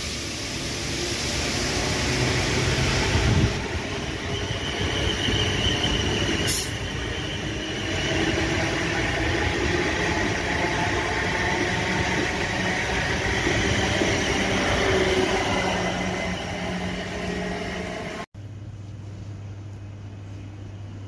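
A train running past on the line: a steady rumble of wheels on rail with a faint high wheel squeal a few seconds in and a couple of sharp clicks. Near the end the sound cuts off abruptly to a quieter, low steady hum.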